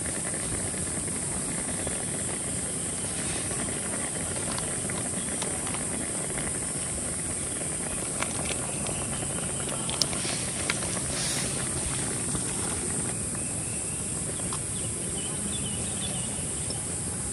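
Steady rushing water noise, typical of a waterfall or stream, with a constant high hiss over it. A few short sharp clicks come about halfway through.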